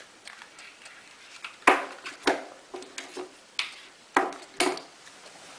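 Handling noise from the headphones and their packaging: a series of sharp clicks and knocks, about five louder ones with lighter taps between, the loudest about a second and a half in.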